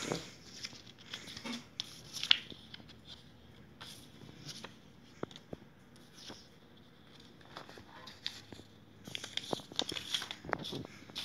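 Paper crinkling and tearing as World Cup stickers are peeled and their torn packet wrapper is handled, with scattered clicks and taps; one sharp click a couple of seconds in, and the rustling gets busier near the end.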